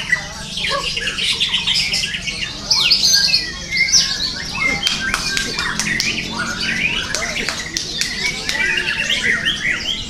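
White-rumped shama singing a fast, varied run of whistles and chirps among other birds' calls, with sharp clicks here and there.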